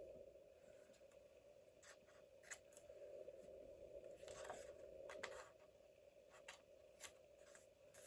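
Faint paper-crafting sounds: a few soft clicks and rustles of paper being handled and cut, spread out over several seconds, over a low steady hum.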